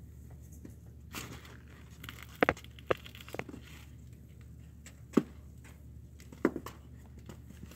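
Kittens playing and scuffling, with a handful of short, sharp taps and scratches from paws and bodies on cardboard and toys. A low, steady hum runs underneath.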